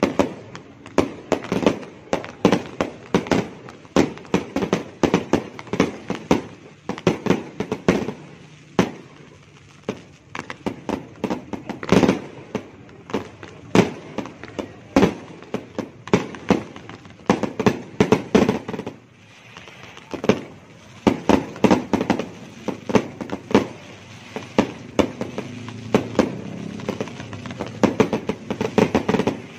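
Fireworks and firecrackers going off in rapid, irregular succession: many sharp bangs, some overlapping, with a short pause a little past two-thirds of the way through.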